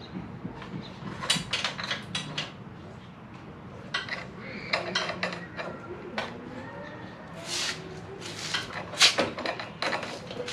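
Metal roller chain (420 size) clinking and rattling as it is handled, in several bursts of sharp clinks.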